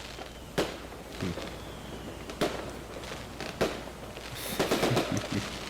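Fireworks going off: three separate sharp bangs, a faint falling whistle between the first two, and a burst of crackling near the end.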